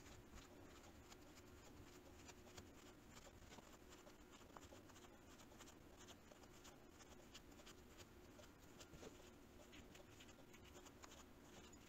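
Near silence: faint, scattered scratchy rustles as polyester fiberfill stuffing is pushed into a small crocheted amigurumi body, over a faint steady hum.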